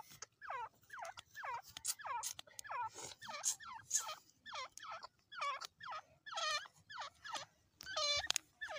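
Dakhni teetar (partridges) calling: a quick, steady string of short chirps, each falling in pitch, about two a second, with a louder, buzzier call near the end.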